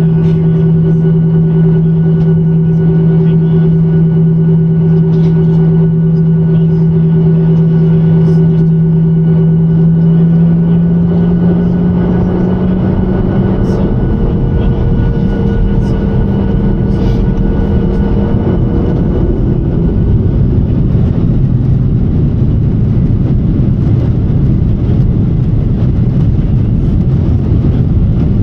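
Boeing 737-900ER's CFM56-7B jet engines running with a steady two-tone hum. About ten seconds in, the tones climb slightly and a broad rumble grows and takes over as the thrust comes up.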